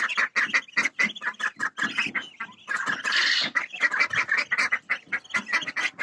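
Domestic local (baladi) ducks quacking in a rapid, overlapping run of short calls.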